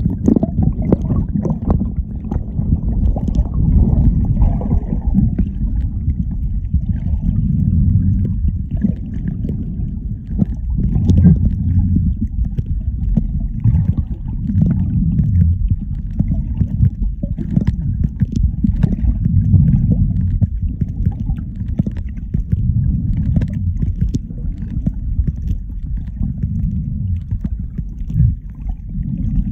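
Muffled underwater noise picked up by a submerged phone microphone: a dull, low water rumble that swells and eases slowly, with faint scattered ticks.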